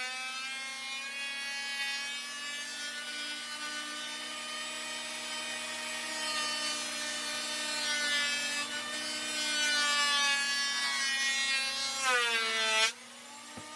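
Ridgid 13-inch thickness planer running as a rough chainsaw-milled plank feeds through: a loud motor whine whose pitch wavers and sags under the cut. Near the end the pitch dips and the loud cutting noise stops suddenly as the board clears the cutterhead, leaving a quieter whine that climbs back up to speed.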